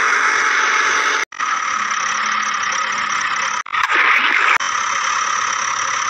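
A steady, engine-like mechanical drone with a hissing edge, cutting out abruptly about a second in and again past the middle before resuming.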